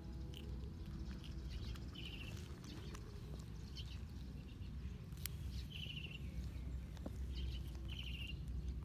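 A bird's short chirps, four brief bursts spread a second or two apart, over a steady low rumble.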